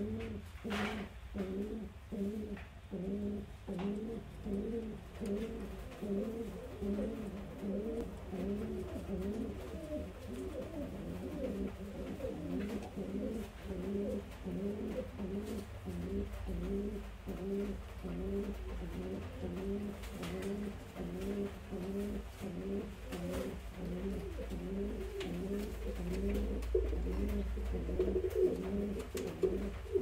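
Iraqi domestic pigeons cooing in a wooden nest box: a long unbroken run of repeated low coos, about two a second.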